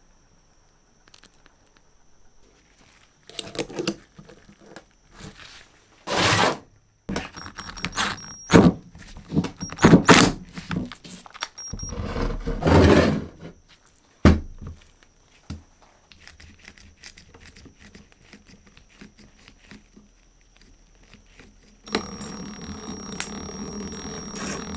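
Irregular scrapes and knocks of metal tool parts being handled and worked, then a steady mechanical noise that starts near the end.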